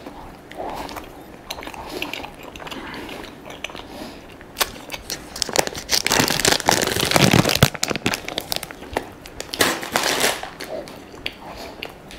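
Plastic croissant wrapper crinkling and crackling as it is handled, loudest for a couple of seconds about halfway through and again near the end, with close-up chewing between.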